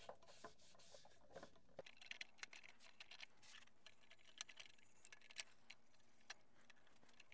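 Near silence, broken by faint scattered ticks and light scratching: a cloth rag cut from a T-shirt wiping finish onto a cherry box lid.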